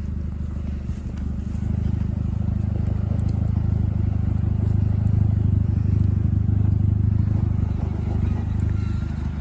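Small Ford car's engine running under load while driving off-road. It pulls harder and louder from about a second and a half in, then eases off near the end.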